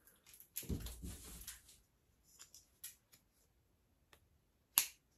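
Light handling noises from a plastic dashboard phone holder: a soft low thump and rustle about a second in, then a few faint clicks and one sharper click near the end.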